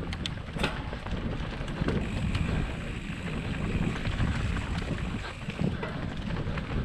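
Wind buffeting a GoPro Hero 7's microphone over the low rumble of a mountain bike rolling along a dirt trail, with scattered sharp clicks and knocks from the bike.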